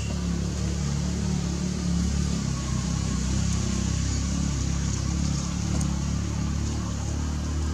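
An engine running steadily at idle, a low, even drone that holds its pitch.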